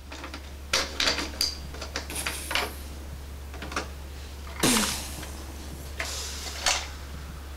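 Plastic toy vehicles and action-figure parts being handled, giving irregular clicks, knocks and clatter in small groups, over a steady low hum.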